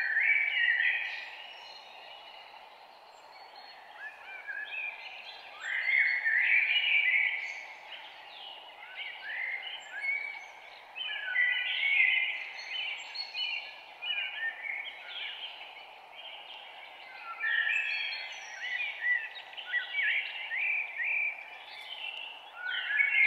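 Songbirds singing outdoors: quick, varied chirping phrases two to four seconds long, coming back every few seconds, over a steady low background hiss.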